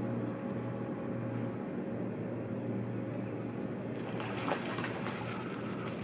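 A steady low hum under waterside background noise, joined about four seconds in by irregular rushing and splashing as brown pelicans beat their wings and take off from the water.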